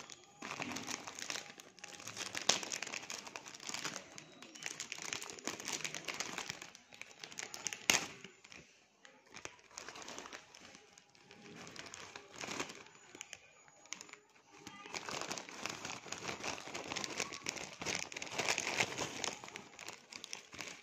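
Thin plastic snack packet of puffed nali rings crinkling and crackling as hands squeeze and handle it. The crinkling comes in two busy spells with a quieter stretch between them, and a single sharp crackle about eight seconds in is the loudest moment.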